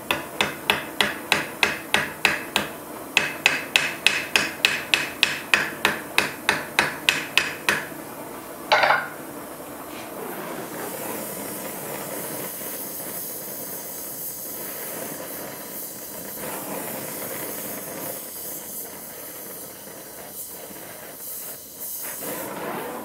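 A small hammer rapidly peening the glowing end of a steel pin at the top of a saber handle, about three blows a second in two runs with a short break, then one heavier knock. About ten seconds in, an oxy-fuel torch flame starts hissing steadily as it reheats the pin.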